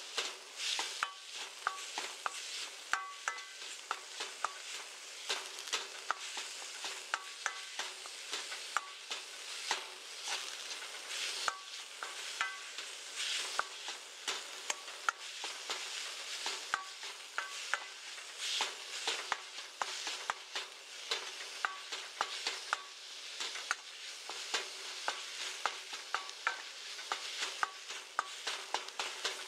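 Minced meat sizzling in a frying pan as it is stir-fried. A spatula scrapes and knocks against the pan in quick irregular clicks, some with a short metallic ring.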